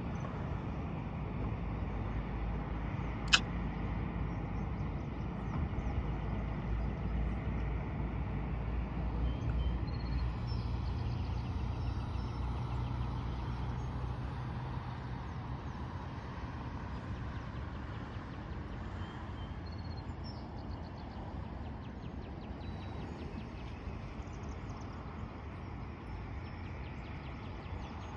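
A distant engine drones low and steady, swelling through the middle and then fading away, with a single sharp click about three seconds in. Faint bird chirps come and go over it.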